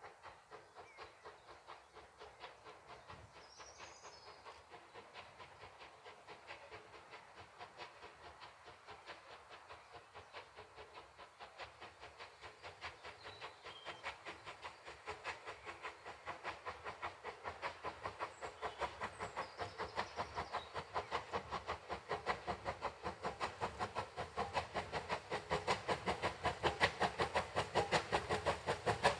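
Ex-Southern Railway West Country class three-cylinder steam locomotive 34027 'Taw Valley' approaching under steam, its exhaust beating in a quick, even rhythm that grows steadily louder as it nears.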